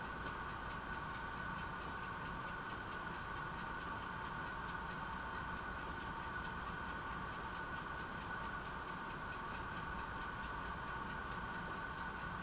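Steady hum with faint, regular ticking.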